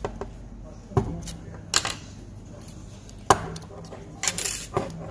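Sharp metallic clicks and clinks from a large padlock and lock-picking tools being handled, a few single clicks and then a short rattling run near the end.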